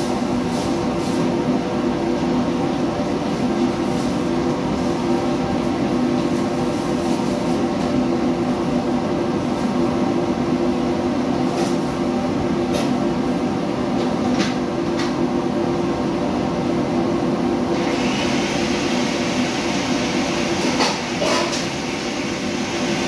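Steady mechanical drone of a commercial kitchen's extraction hood fan and burners, with a few light clinks of pots and utensils. A hiss joins the drone about 18 seconds in.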